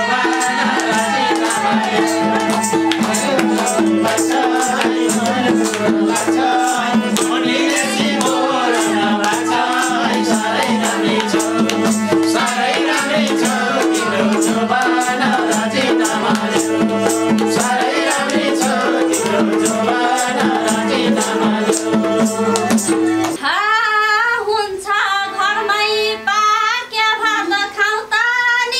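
Live Nepali dohori folk music: madal drums keep a fast, even beat under a bamboo flute melody in an instrumental interlude. About 23 seconds in the instruments drop out and a woman sings the next line unaccompanied.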